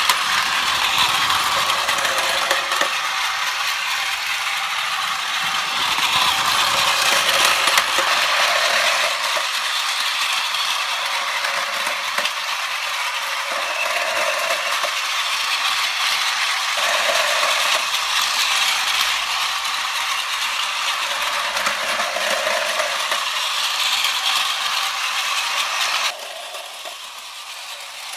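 Battery-powered Plarail MTR Airport Express toy train running on blue plastic track, its small geared motor whirring with a steady mechanical rattle. It gets quieter near the end.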